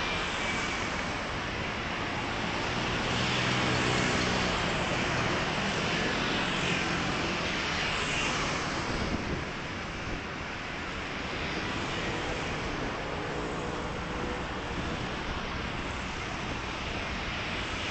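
Steady city traffic noise: an even hiss and rumble that swells slightly a few seconds in.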